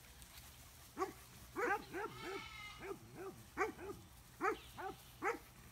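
Pyredoodle puppies yipping: a run of short, high-pitched barks, several a second, starting about a second in.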